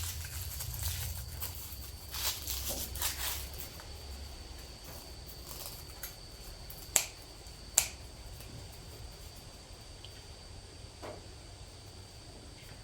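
Dry garlic being cleaned by hand: rustling and scraping of papery skins, stems and roots, loudest in the first few seconds, with two sharp clicks about seven and eight seconds in.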